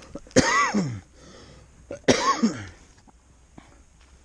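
A man coughing twice, about a second and a half apart, each cough trailing off with a falling pitch.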